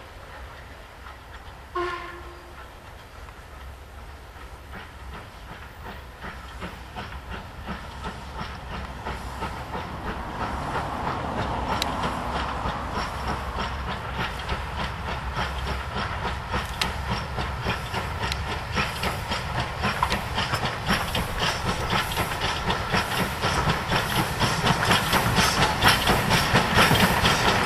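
Steam locomotive hauling a passenger train as it approaches and passes, its rapid exhaust beats and the hiss of steam growing steadily louder. About two seconds in there is a brief whistle toot.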